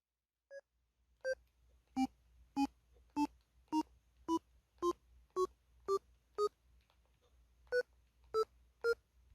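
Electronic beeps from the LG-SV360's built-in sounder: a lone short beep, then a run of about ten short beeps, roughly two a second, each a step higher in pitch like a rising scale. After a brief pause come three more beeps.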